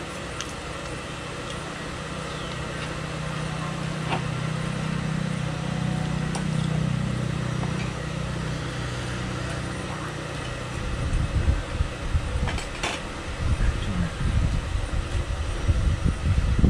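A low engine hum swells and fades over about ten seconds. Then wind buffets the microphone with uneven low rumbling gusts.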